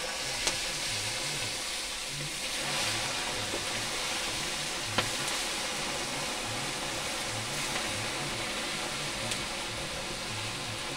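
Fish frying in hot oil in a pan over an open wood fire: a steady sizzle, with a few sharp pops.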